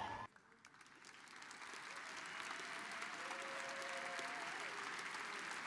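Hall audience applauding. A man's voice cuts off just at the start, then after a second of near silence the applause fades in and builds steadily, faint at first.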